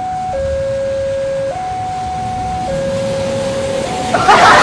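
Railway level-crossing warning alarm sounding a steady two-tone signal, alternating low and high notes about every second, warning of an approaching rail vehicle. About four seconds in, a sudden loud, rough noise drowns it out as a motorised rail trolley comes through the crossing.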